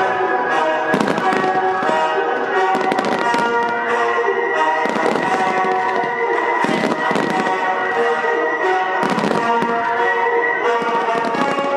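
Aerial firework shells bursting with sharp bangs about every two seconds, over loud music with sustained notes.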